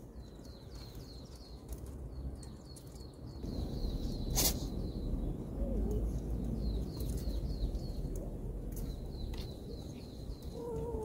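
Small birds chirping in quick repeated runs over a steady low outdoor rumble, with one sharp click about halfway through. Near the end a cat meows once.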